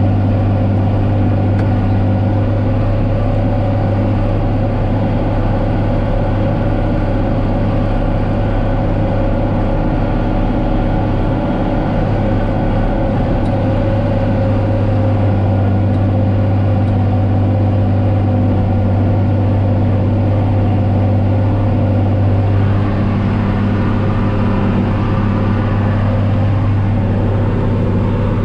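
John Deere 4555 tractor's six-cylinder diesel engine running steadily under load while pulling a disk harrow through corn stalks, heard from inside the cab.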